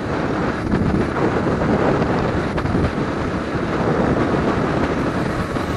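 Wind buffeting the microphone of a camera on a moving motorcycle, a dense steady rumble with engine and road noise underneath.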